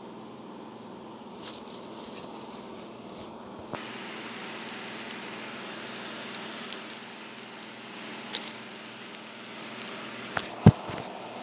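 Hand-handling noise: rubbing and rustling with scattered small clicks, and a single sharp knock near the end.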